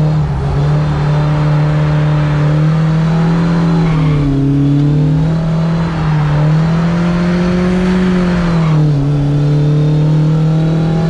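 Carbureted 4A-GE four-cylinder engine of a Toyota AE86 Corolla heard from inside the cabin, running at high revs under load. The note dips about four seconds in, climbs again, then falls back near the end.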